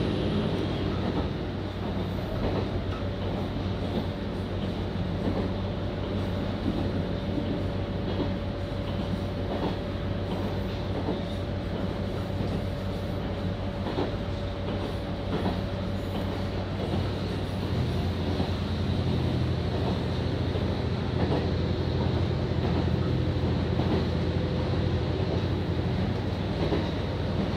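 A JR Kyushu local train running, heard from inside the carriage: a steady low drone with scattered wheel clicks over the rail joints. A thin high tone sounds through the middle stretch and dies away, and the low drone grows stronger about two-thirds of the way in.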